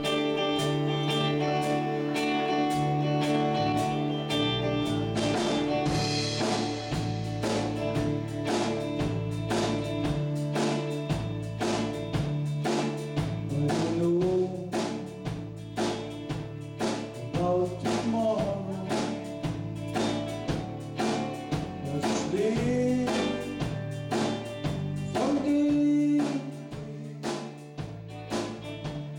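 Live band playing a slow gospel song on drum kit, electric bass and acoustic-electric guitar, with a steady drum beat. A man's voice starts singing at the microphone about halfway through.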